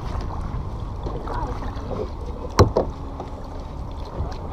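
Kayak being paddled with a double-bladed paddle: water swishing with the strokes over a steady low rush of wind and water. A single sharp knock about two and a half seconds in.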